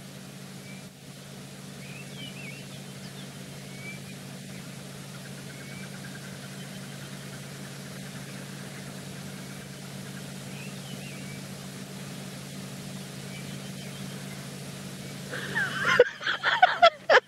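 A steady low hum runs under faint, scattered bird chirps in quiet bush ambience. About fifteen seconds in, louder, sharper sounds break in.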